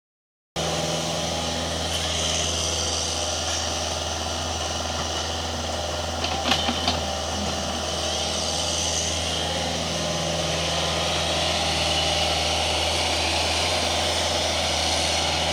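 Diesel engine idling steadily, with three or four short knocks about six and a half seconds in.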